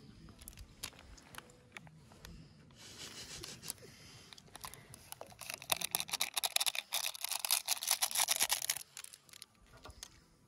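Foil seasoning sachet from an instant-ramen pack crinkling loudly as it is squeezed and shaken empty over the pot, for about three seconds from just past the middle. Scattered clicks and light rustling come before it.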